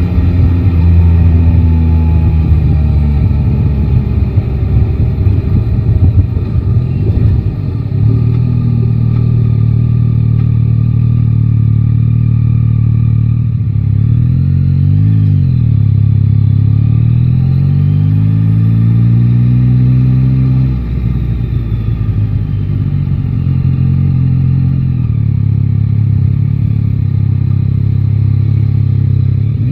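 Yamaha Tracer 9 GT's 890 cc inline-three engine running while riding, mostly at steady revs. About halfway through the pitch dips and comes back up, then climbs in a longer pull that drops away about two-thirds of the way in before settling steady again.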